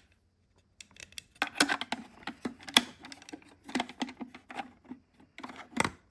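Irregular clicks and taps of small plastic parts being handled, starting about a second in.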